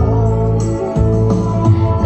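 A woman singing a slow ballad into a microphone over a recorded backing track of held keyboard chords.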